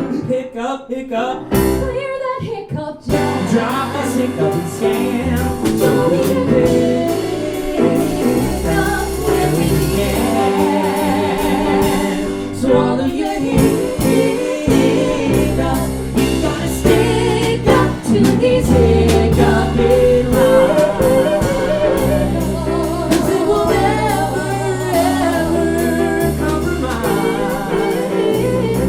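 Live band music: piano, bass and drums playing with a woman singing long, wavering notes.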